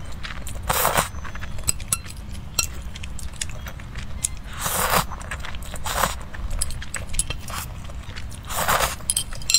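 A person slurping and chewing saucy noodles close to the microphone: four hissy slurps, about a second in, near five seconds, at six seconds and just before nine, with wet chewing and smacking clicks between them.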